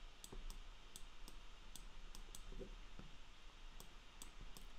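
Faint, irregular clicking of a computer mouse button, pressed and released stroke by stroke while handwriting is drawn with the mouse.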